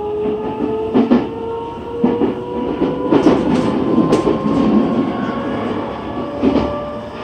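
Nagoya Municipal Subway N3000-series train running, heard from inside the car: the traction motor whine rises slowly in pitch as the train gathers speed. Over the rumble, the wheels knock on rail joints several times at uneven intervals.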